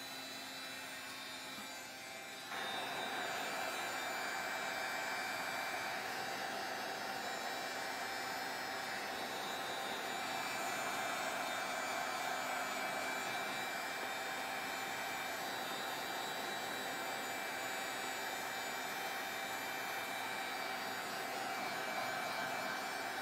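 Handheld craft heat tool blowing hot air steadily to dry wet water-based stain on a card. Its noise steps up and stays louder about two and a half seconds in.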